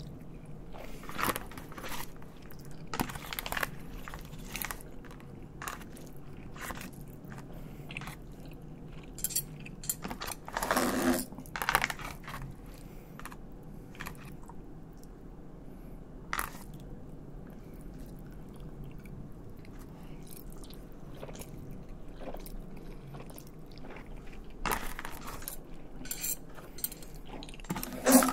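A metal fork and knife scraping and clicking against an aluminium foil tray of spaghetti, mixed with chewing. The clicks come irregularly throughout, with a louder clatter about eleven seconds in and another near the end.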